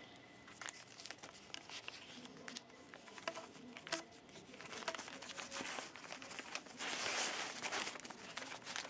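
Newspaper rustling and crinkling as a sheet is rolled around a vacuum-cleaner tube and its end folded, with a louder rustle about seven seconds in.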